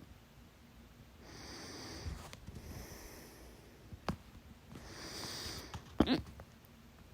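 A person's hiccups: two soft breaths, then one loud, sharp hiccup about six seconds in.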